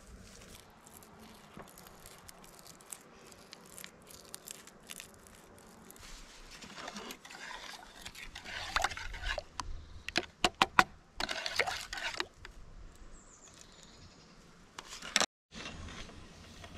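Handling noise from rubber-gloved hands working blackberries in an enamel bowl: faint rustling at first, then a busier stretch of scraping and several sharp clicks in the middle.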